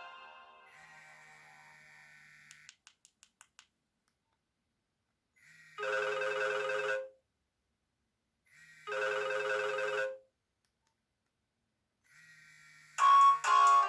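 Nokia 1600 mobile phone playing its built-in ringtones through its small speaker: the end of one melody fades out, then a few quick ticks, then two identical telephone-style ring bursts of about a second each, three seconds apart. A new, louder ringtone melody starts about a second before the end.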